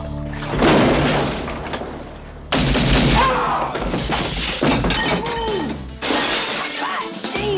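Movie fight sound effects: glass shattering and breaking, with a sharp crash about half a second in and a louder, longer one from about two and a half seconds, over background music.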